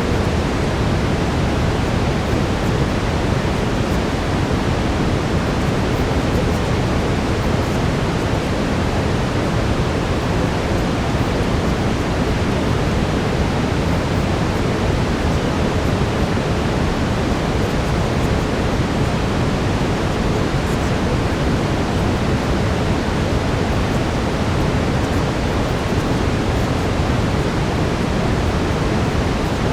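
Steady brown noise: an even, unchanging rushing hiss, heaviest in the low end, with a faint steady tone near 432 Hz beneath it.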